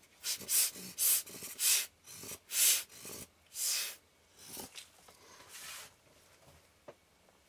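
Hand-squeezed rubber air-blower bulb puffing air onto a camera lens element to blow dust off the glass. About eight quick puffs of air come in the first four seconds, then a few fainter ones.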